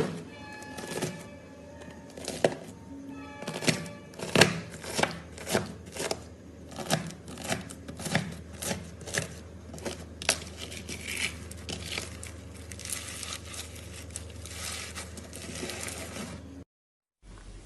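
Slime being pressed and squeezed by hand, giving a run of sharp, sticky pops and crackles at roughly two a second, with faint music under the first few seconds. The sound cuts out briefly near the end.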